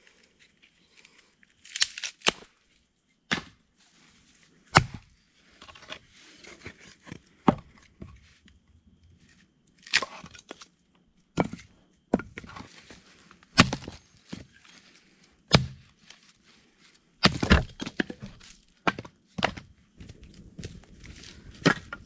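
Firewood being split by batoning: a wooden baton knocking a blade through short logs. About a dozen sharp wooden knocks and cracks come at uneven intervals.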